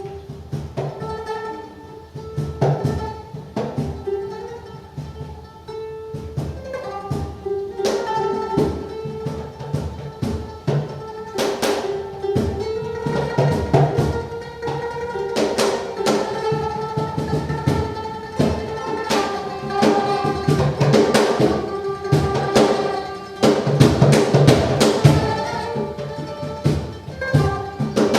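Free-improvised acoustic music: congas with plucked string instruments, irregular strikes over held notes, growing busier in the second half.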